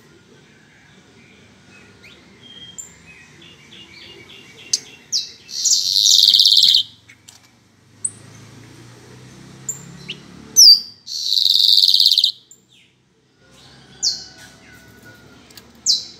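Male yellow-hooded blackbird singing: two long, harsh, buzzy high phrases about five seconds apart, with short sharp high notes scattered between them.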